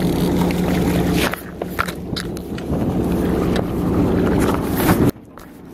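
Boat engine humming steadily under wind and handling noise, with scattered sharp knocks; the noise drops away abruptly about five seconds in.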